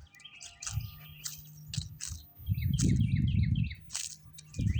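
Small birds chirping over and over in short, falling notes, while the ringing tones of a wind chime die away in the first second. A gust of wind buffets the microphone with a low rumble about halfway through, the loudest sound here.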